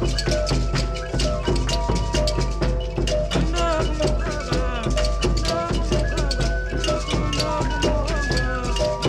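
Background music: a fast, steady percussion beat with a melody over it.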